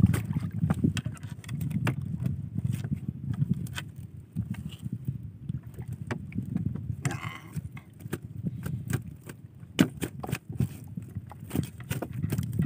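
Small fishing boat out on a lake: a steady low rumble of wind and water with scattered knocks and clicks, and a brief hiss about seven seconds in.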